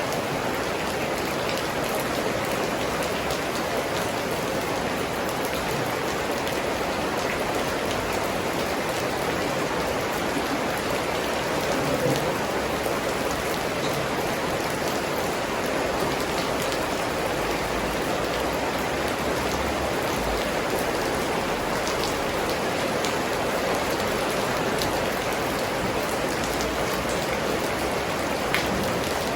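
Steady heavy rain falling, a dense even hiss with individual drops ticking on surfaces.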